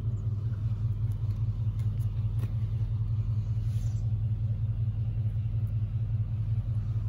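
A steady low rumble runs throughout, with a few faint clicks and rustles as the rubber bands are pulled off a bundled tie-dyed shirt.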